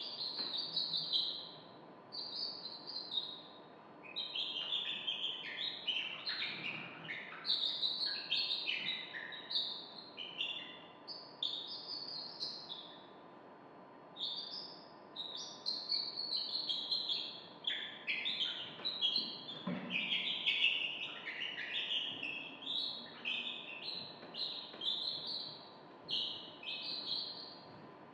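Many bird-like chirps and short whistled glides overlapping, several at once, in a busy chatter that pauses briefly about halfway through.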